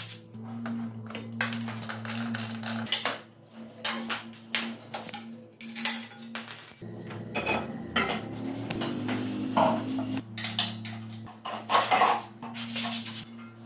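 Steel parts and hand tools clinking and clanking as a buggy swing-arm frame is worked on, in many short irregular knocks, over a steady low hum.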